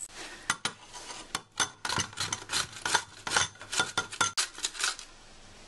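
Pepper mill being twisted to grind pepper: a quick, irregular run of dry rasping clicks that stops about five seconds in.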